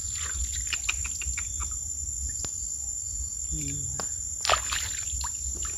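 A steady, high-pitched insect trill runs throughout, over a low rumble, with scattered short clicks and rustles.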